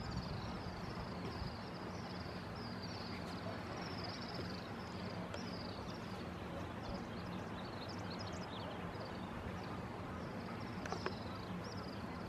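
Open-air ambience: a short, high, falling chirp repeats a bit under twice a second over a steady low hum and hiss.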